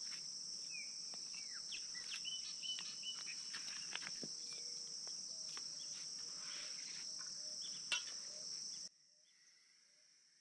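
Steady high-pitched chorus of crickets with several short bird chirps, and scattered clicks of split firewood sticks being knocked together as they are stacked. Everything cuts off suddenly about nine seconds in.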